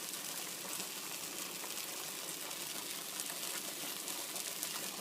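Food frying in a pan on the stove: a steady sizzling hiss.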